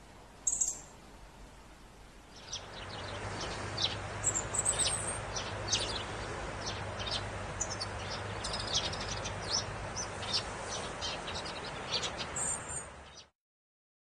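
European robin chirping: many short, high, thin notes in quick, irregular succession over a steady outdoor background hiss, after a single chirp near the start. The sound cuts off suddenly near the end.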